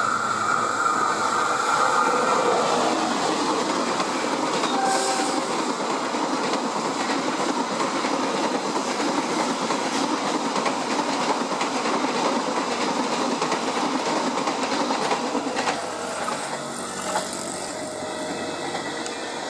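Taksaka passenger train passing close by, its coaches' wheels clattering over the rails in a steady rushing din. A high steady tone sounds in the first few seconds, and the noise eases a little near the end.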